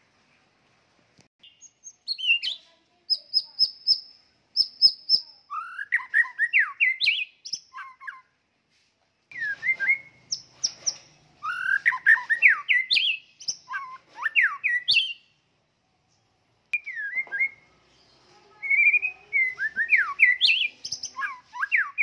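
White-rumped shama singing in three bouts of rapid, varied whistled phrases full of quick sweeping notes, with short pauses between the bouts.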